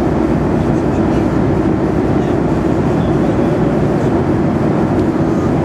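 Steady airliner cabin noise at cruising altitude: engine and airflow rumble heard from inside the passenger cabin, an even hum with no changes.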